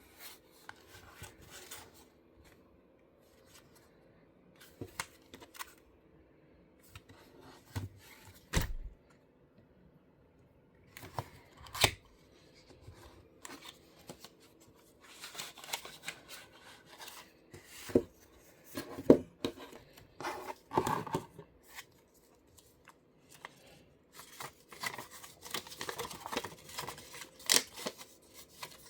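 Packaging of an UNO card game being opened and handled: scattered clicks, taps and rustling of cardboard and wrapping, with a few sharper knocks, the loudest about 19 seconds in.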